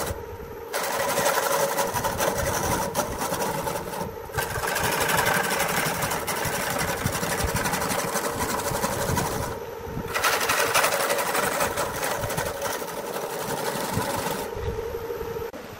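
A gouge cutting into a wooden bowl spinning on a homemade electric wood lathe: a rough cutting sound in long stretches, broken by brief pauses where the tool comes off the wood, over the lathe motor's steady hum. Near the end the cutting stops and the hum dies away.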